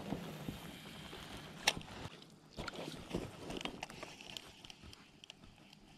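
Scattered light clicks and rustles from handling a spinning rod and reel aboard an inflatable packraft, the sharpest click about two seconds in. A light hiss of wind on the microphone dies down after about two seconds.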